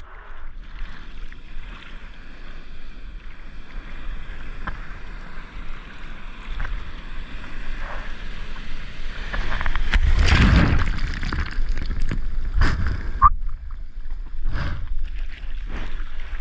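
Ocean water sloshing and splashing around a surfer waiting on his board, with wind on the microphone. A louder rush of water comes about ten seconds in.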